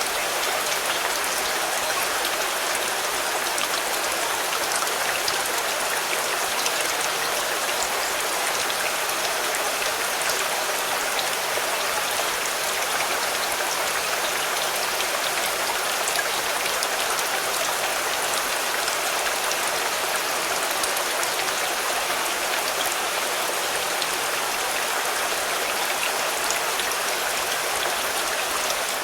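Steady rain falling on a car, drops pattering on the roof and body panels with fine scattered ticks.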